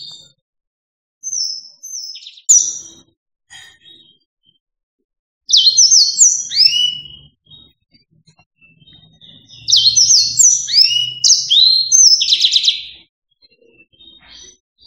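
Yellow-fronted canary singing: three bursts of quick, high, sweeping twittering notes with short pauses between them, the last burst the longest.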